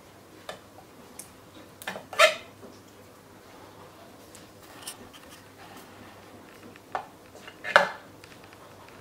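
Scattered short clicks and knocks of small tools and parts being handled against an overlocker, with two louder knocks about two seconds in and near the end.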